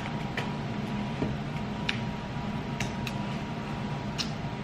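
A few light, scattered clicks and taps from a plastic creamer bottle and its screw cap being handled, over a steady low hum.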